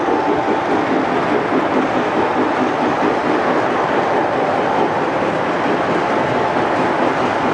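Lionel O-gauge freight cars rolling past on three-rail track: a steady clattering rumble of metal wheels over the rails, with a faint steady hum above it.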